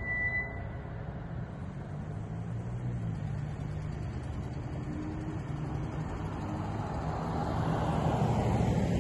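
Road traffic noise: a steady low rumble of vehicles, with one passing vehicle getting louder toward the end.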